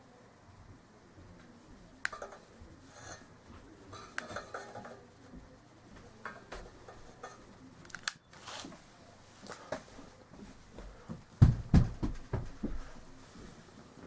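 Scattered small clicks and rustles of hands handling the lantern and its parts while the new mantles are lit. About eleven and a half seconds in comes a short cluster of dull thumps, the loudest sounds here.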